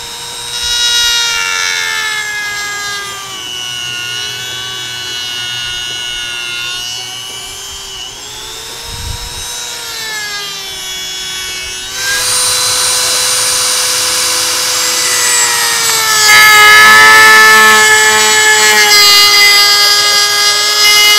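High-speed handheld power tool whining as it cuts off a mounting tab for supercharger clearance, its pitch sagging and recovering as the cut loads it. It gets louder and harsher about twelve seconds in.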